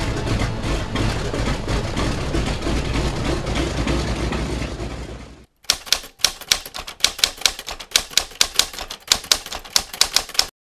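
A steady low rumble for the first five seconds or so, then, after a brief gap, a mechanical typewriter clacking out a quick, uneven run of keystrokes.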